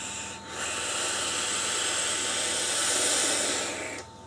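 A long draw on an iGo-W6 quad-coil rebuildable dripping atomizer: a steady hiss of air pulled through the atomizer as the coils fire. It comes as a brief hiss near the start, a short break, then one long hiss of about three and a half seconds that stops suddenly near the end.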